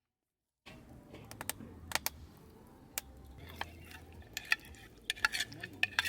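After a short silence, a run of irregular light clicks and taps, like small objects being handled, over a low steady hum.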